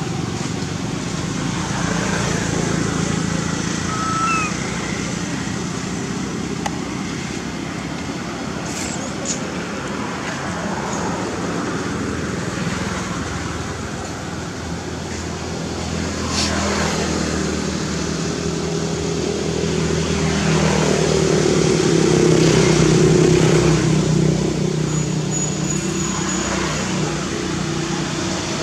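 Road traffic noise: a steady motor hum with vehicles passing, their pitch falling as they go by, and the loudest pass about two-thirds of the way in.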